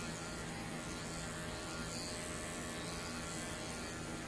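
Cordless dog grooming clipper fitted with a guard comb, running with a steady hum as it is worked over a dog's coat.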